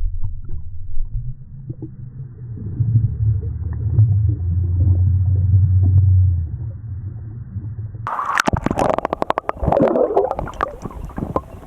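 Waterproof camera underwater: a muffled, low rumbling and gurgling with the high sounds cut off. About eight seconds in the camera breaks the surface, and the sound turns bright with splashing water and sharp knocks against the housing.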